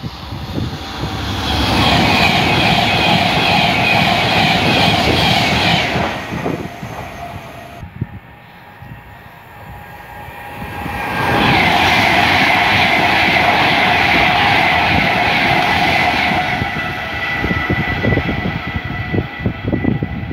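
Electric passenger trains passing at speed on an overhead-electrified line. There are two loud passes of about five seconds each, with a steady high ringing tone over the rush of wheels on rail, and a quieter lull between them.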